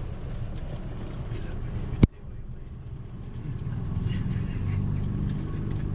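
Kia Bongo 3 van's engine and road noise heard from inside the vehicle, with a sharp click about two seconds in. From about four seconds the engine hum grows louder as the van pulls away.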